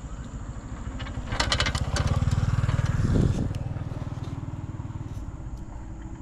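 A motorcycle engine passing by, growing louder to a peak about three seconds in and then fading away. A few short clicks come as it approaches.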